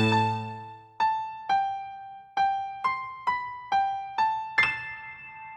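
Background music: a held chord fades away, then a short melody of about nine single piano-like notes, each dying away, the last one ringing on.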